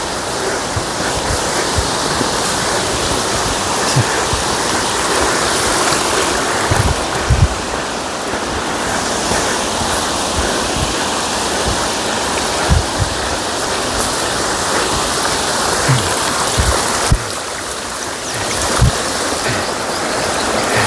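Steady rush of running water from a hillside stream and waterfall, with a few short low thumps on the microphone scattered through it.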